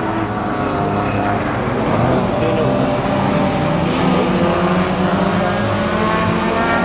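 Rallycross race car engines running hard around the circuit, several engine notes overlapping, their pitch climbing and dropping with the throttle and gear changes.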